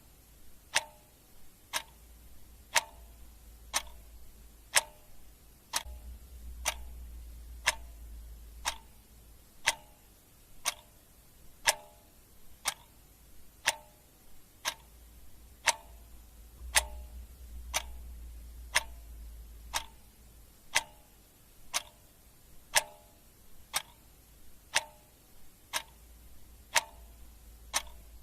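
Clock ticking steadily, one sharp tick each second, each tick with a short ring.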